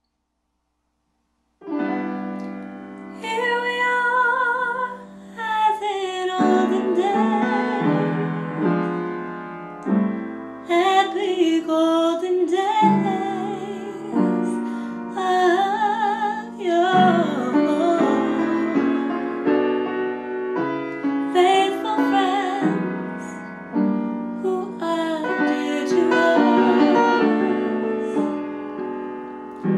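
A woman singing with vibrato over jazz piano accompaniment. The music starts about a second and a half in, after silence.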